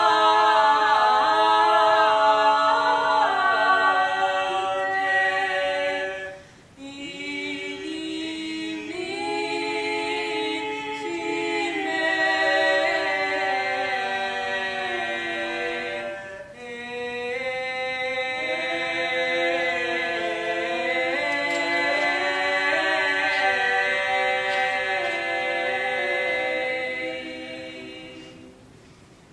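Mixed choir of men and women singing a cappella in several parts, in long phrases with two short breaks for breath, about a quarter and about halfway through. The final chord dies away near the end.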